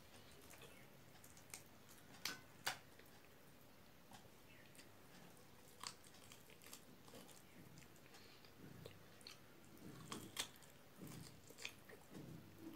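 Faint eating sounds: a person chewing mouthfuls of rice and chicken curry eaten by hand, with a few sharp clicks.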